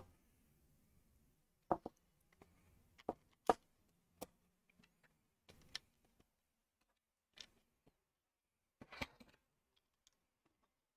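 Scattered sharp clicks and taps of plastic Lego pieces being handled and pressed together, about eight in all, the loudest about three and a half seconds in.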